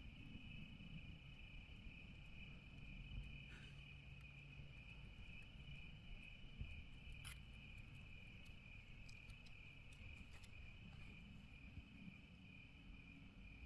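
Faint, steady chirring of crickets in one high, even band, with two brief clicks about a quarter and halfway through.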